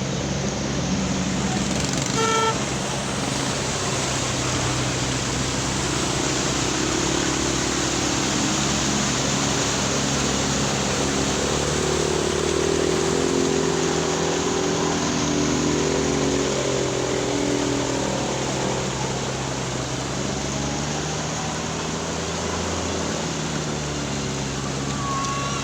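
Road traffic: motor vehicle engines running steadily under a dense wash of noise, with a short horn toot about two seconds in.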